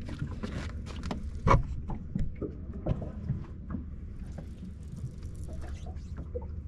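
Scattered knocks and clicks over a low steady rumble, the loudest knock about a second and a half in.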